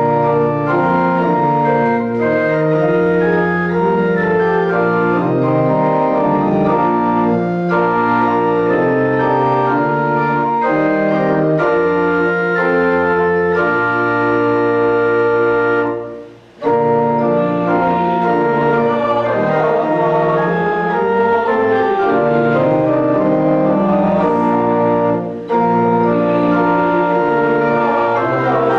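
Church organ playing a hymn in held chords that change step by step, with a short break between phrases about sixteen seconds in.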